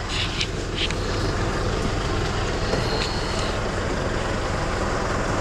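Vehicle engine running steadily with a low hum, with a few brief clicks or rattles near the start and again about three seconds in.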